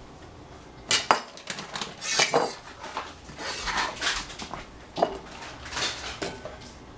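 Cucumber slices being swept by hand across a plastic cutting board and dropped into a bowl. Two sharp clicks come just after a second in, followed by several short scraping swishes.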